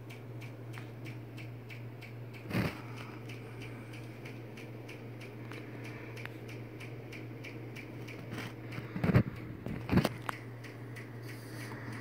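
Handling noise from a diecast model airliner being moved about: three knocks, one about two and a half seconds in and two close together near 9 to 10 seconds, with light rustling between them, over a steady low hum.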